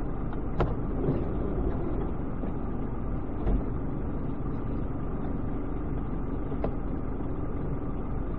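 A stopped car's engine idling steadily, heard from inside the cabin through a dashcam, with a few light clicks and a low thump about three and a half seconds in.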